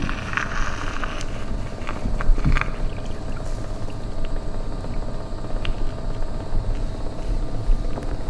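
A steady low rumbling drone with faint held tones above it, from a sound-art piece played over loudspeakers. A few scattered clicks and a short rustling hiss come in the first three seconds.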